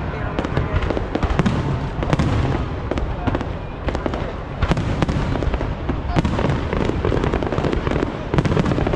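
A fireworks display going off continuously: a dense run of overlapping bangs and sharp crackles with a low rumble underneath.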